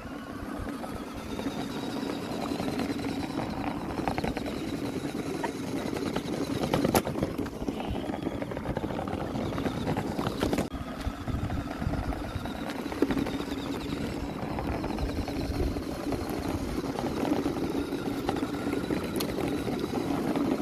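Small DC motor of a homemade toy truck running steadily, with its wheels rolling over asphalt, and a couple of sharp clicks along the way.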